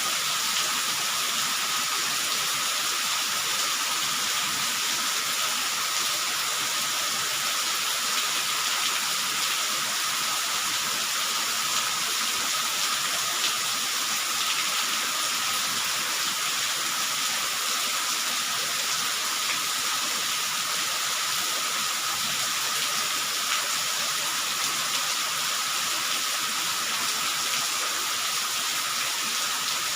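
Steady rain falling, an even hiss that keeps the same level throughout.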